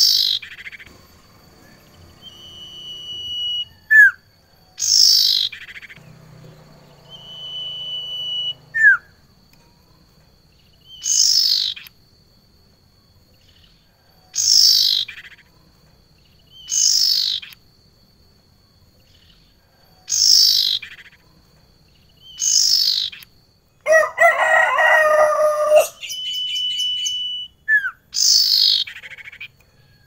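Caged female sirtu iora calling: a loud call sweeping down in pitch, repeated about every three seconds, with a few drawn-out single-pitch whistles and short notes between the calls. Late on, a harsher, louder call lasts about two seconds.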